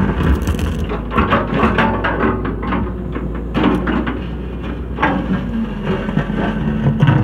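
Excavator's diesel engine running steadily while its steel bucket scrapes and knocks against soil and rock in a narrow trench, in irregular strokes.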